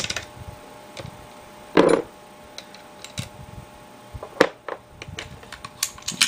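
Small metal clicks and taps from a Type 14 Nambu pistol being taken apart by hand as the cocking knob is unscrewed and its parts come out. There is one louder knock about two seconds in.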